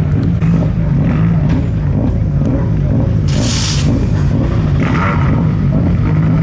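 Rally car engine revving hard, its pitch climbing and dropping again and again through gear changes, with a short hissing burst about three seconds in.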